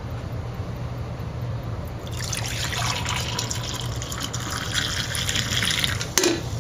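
Liquid running or pouring, starting about two seconds in, over a steady low hum, with a short click near the end.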